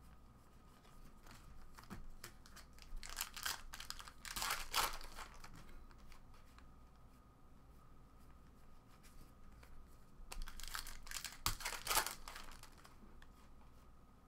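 Trading cards rustling and sliding against each other as they are flipped one by one from one hand onto the other, in two crisp bursts: a few seconds in and again about ten seconds in.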